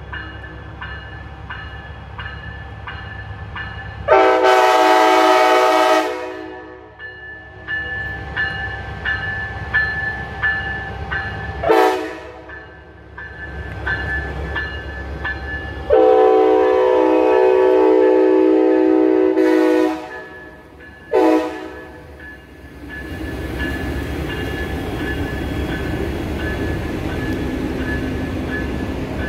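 Amtrak Siemens Charger diesel locomotive's multi-chime air horn sounding four blasts, long, short, long, short, over a bell dinging about twice a second. From about two-thirds of the way in the locomotives and passenger cars pass close by with a steady rumble of engines and wheels on the rails.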